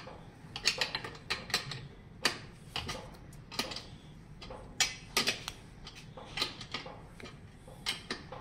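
Wrench turning the nut on a threaded frame spreader tool, with irregular metallic clicks and clinks, several a second, as the nut is worked to spread the bike frame's rear dropouts.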